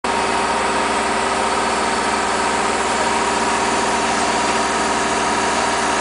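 A crane truck's engine running steadily while the crane lowers its load.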